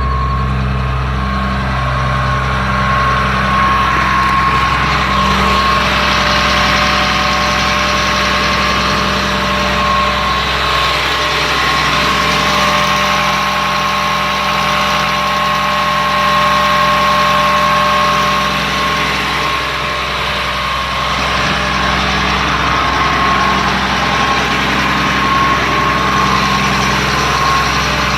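Caterpillar C7 inline-six diesel in a school bus idling steadily, with a steady high whine running above the engine note.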